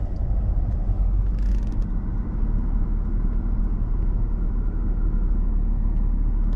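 A car driving, with a steady low rumble of engine and road noise. A brief hiss comes about one and a half seconds in.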